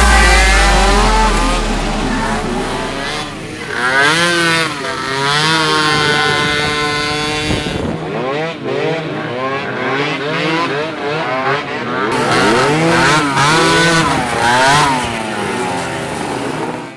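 Several small racing ATV engines revving hard, their pitch climbing and dropping again and again as they race, with overlapping engines at different pitches.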